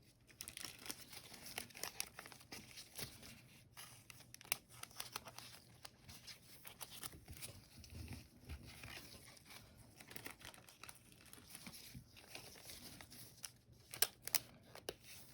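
Trading cards and their packaging being handled and sorted by hand: faint rustling and crinkling with many small clicks and taps, one louder click near the end.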